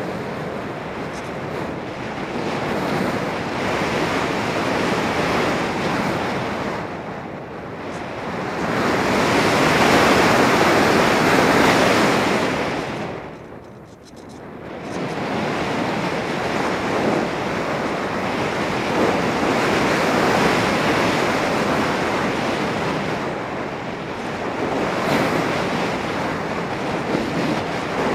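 Airflow rushing over the onboard camera's microphone on a Volantex Phoenix 1600 RC glider in flight: a steady rushing noise that swells and fades, loudest about ten seconds in, then drops sharply near the middle before building again.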